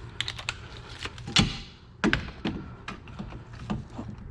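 Hand tools clicking and clanking on metal as the last 14 mm hub bolt is worked loose with a socket and extension. Two sharper metal knocks stand out, about one and a half and two seconds in, the first ringing briefly.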